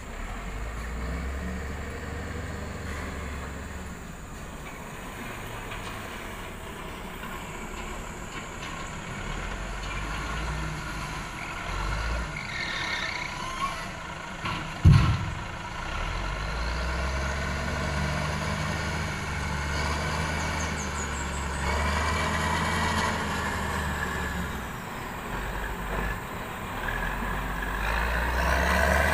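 Heavy diesel engines of a log-grapple wheel loader and a loaded Mercedes-Benz log truck running, with the engine note rising and falling as they rev. A single sharp thump about halfway through.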